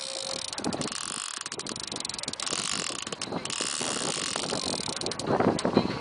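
Fishing reel ratcheting in dense runs of fine clicks while a heavy fish is played on a bent rod, with wind on the microphone.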